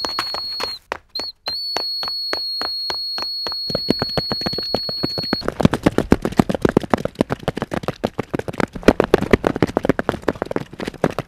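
A shrill, steady high tone sounds in two long blasts, with a short break about a second in, over a regular ticking of about five clicks a second. After about five and a half seconds the tone stops and a dense, rapid run of sharp clicks and knocks follows.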